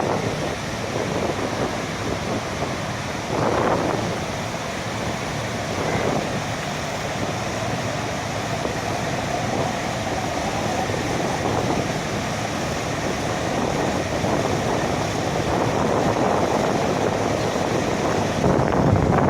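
Steady rushing noise of a bridge waterfall, blended with highway traffic. Near the end there are a few low buffets of wind on the microphone.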